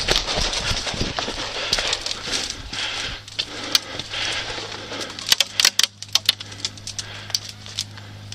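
Airsoft guns firing in an exchange: sharp, irregular pops and clicks, coming thickest in a quick run a bit past halfway. Underneath are a rustling haze and a steady low hum.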